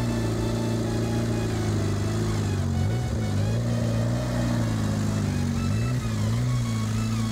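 Classic Austin Mini's four-cylinder engine running at low speed as the car is manoeuvred, its pitch dipping and rising several times.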